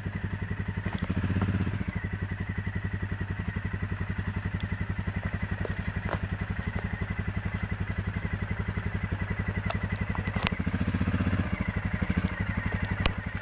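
ATV engine running at a low, steady, even pulse, briefly given more throttle twice: about a second in and again near ten seconds in. A few sharp clicks are scattered through.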